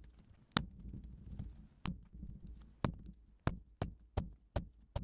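A lump of clay slapped down hard onto a work table again and again as it is thrown out into a flat slab, about eight sharp slaps, coming faster in the second half.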